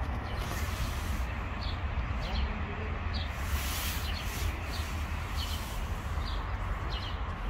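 Outdoor ambience: a steady low rumble of wind on the microphone, with a small bird repeating short high chirps about once or twice a second in the background, and a few brief soft rushing noises.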